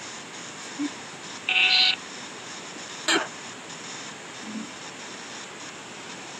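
A short electronic beep with several tones at once, about a second and a half in, over a steady faint hiss, followed by a brief click a little after three seconds.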